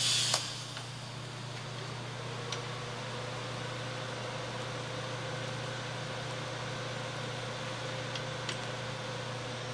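TIG welding arc burning steadily: an even hiss over a low electrical hum, with a faint steady tone joining in about two and a half seconds in.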